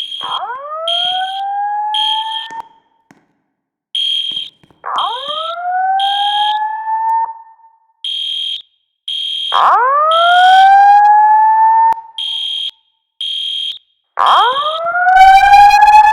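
Fire alarm evacuation signal from a building's voice-evacuation system. A rising slow-whoop tone repeats about every five seconds, the last two louder, while a high-pitched alarm beep sounds in groups of three, the temporal-three evacuation pattern.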